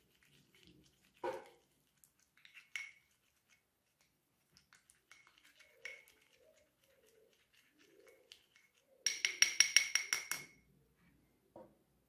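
A spoon clinking and scraping against a small glass bowl while a thick paste is stirred, with scattered light ticks and a fast run of about ten ringing clinks about nine seconds in, the loudest part.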